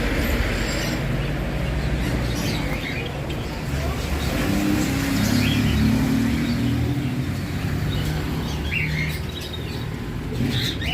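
Birds chirping in scattered short calls over a steady low rumble.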